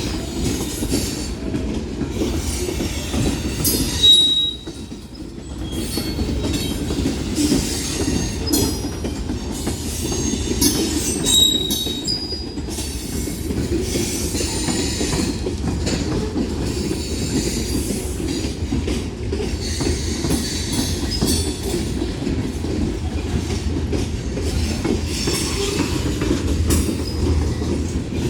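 Union Pacific mixed freight train's cars rolling past close by: a steady rumble of wheels on rail with clickety-clack over the rail joints. Brief high-pitched squeals come about 4 and 11 seconds in, which the railfan puts down to the brakes and calls loud squeaking.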